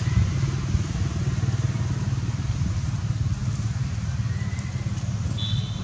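Steady low rumble of a running engine, with a fine rapid pulsing. A short high tone sounds briefly near the end.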